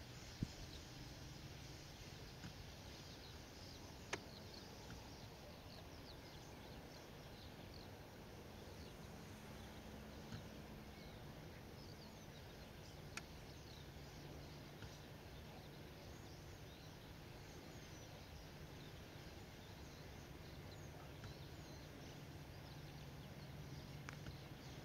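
Faint rural ambience: small birds twittering thinly in the distance over a low steady hum, with a few sharp clicks.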